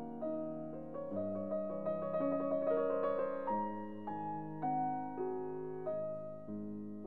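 Background instrumental music: single notes and chords struck and left to fade, changing every half second or so, with a quicker run of notes in the middle.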